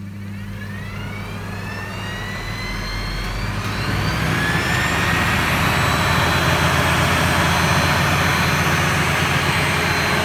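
Treadmill DC permanent-magnet motor spinning up the Boxford lathe's belt drive, fed through an electric heater wired in series. It starts with a whine that rises in pitch and grows louder over the first four seconds or so, then runs steadily at speed.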